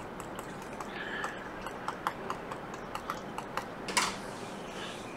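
Fine-tipped blade scratching at a MacBook Pro display backlight flex cable, working through its coating to reach the traces: faint, irregular ticks and small scrapes, with one louder scrape about four seconds in.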